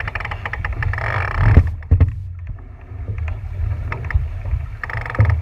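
Wind buffeting the microphone on a boat on open water, a steady low rumble with splashy, gusty noise over it that eases briefly about two seconds in and picks up again near the end.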